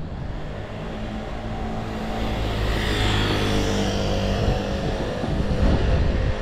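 A motor vehicle passing close by on the road, its engine hum and tyre noise growing louder from about two seconds in and dropping away near the end.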